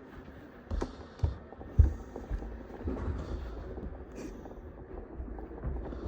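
Handling noise from unboxing a model car: a few dull thumps and knocks, the loudest about two seconds in, with lighter rustling and taps between.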